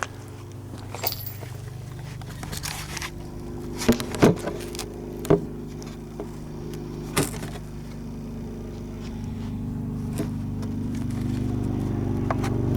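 German Sport Guns STG-44 replica in .22LR firing single semi-automatic shots: about half a dozen sharp cracks at uneven intervals, two of them close together about four seconds in. A steady engine-like hum underneath grows louder toward the end.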